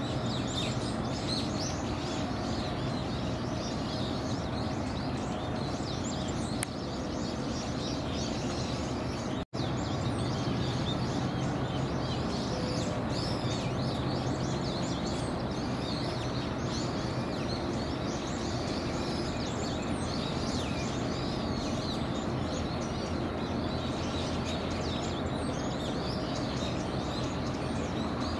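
Many small birds chirping continuously over a steady low hum. The sound drops out briefly about nine and a half seconds in.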